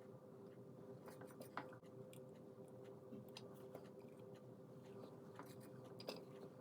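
Near silence with a faint steady hum, broken by scattered small clicks and ticks of handling while wires are soldered onto a small speaker's terminals; the sharpest clicks come about a second and a half in and near the end.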